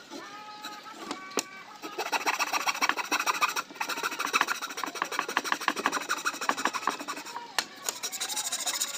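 Metal hand file rasping quickly back and forth across a piece of wood to shape it. The rapid strokes start about two seconds in and stop just before the end.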